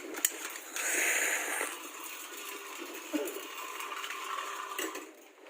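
An exothermic (CAD) welding charge igniting: a sharp click just after the start, then a loud hiss about a second in that lasts about a second. A lower hiss follows as the reaction burns down and fades out near the end.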